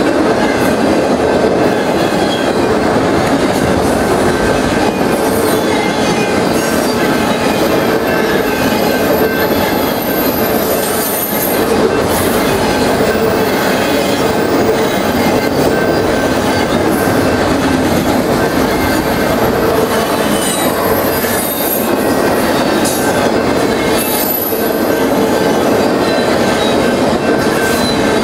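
Autorack freight cars rolling past: a loud, steady rumble and clatter of steel wheels on the rails, with high-pitched wheel squeal coming and going.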